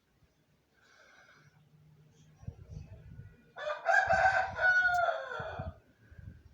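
One long animal call lasting about two seconds, pitched and strong, its pitch falling away at the end, over a low rumble of handling or wind noise.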